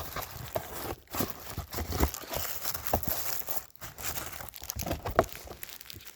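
Packaging crinkling and rustling unevenly as it is handled and opened, with scattered small clicks.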